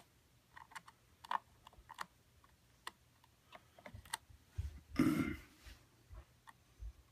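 Light, scattered clicks and rustles of fingers twisting two bared wires together and handling the plastic inside an opened Keurig 2.0 coffee maker, with one louder brushing rustle about five seconds in.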